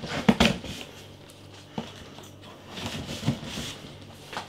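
Cardboard box being handled on a counter: two sharp knocks near the start, another knock a little later, then rustling and soft bumps.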